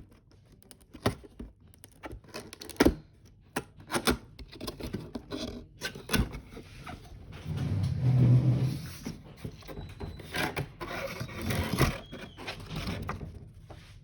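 Cardboard box being opened and handled by hand: scattered knocks and taps, with a longer stretch of rubbing and scraping about halfway through.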